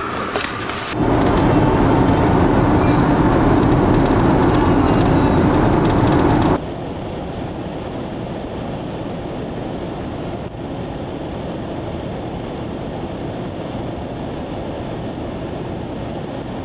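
Van engine and road noise heard inside the cab while driving, a loud steady drone that cuts off abruptly about six and a half seconds in. A quieter steady hum follows while the van stands still.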